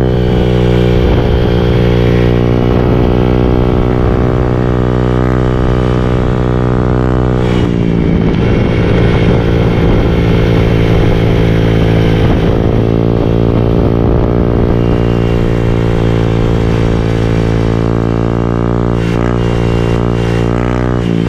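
Honda Click 125 scooter's single-cylinder engine running through a reworked Apido V4 aftermarket exhaust with a 2-inch straight-through pipe, holding a steady droning idle. The note wavers and shifts briefly about eight seconds in, then settles again.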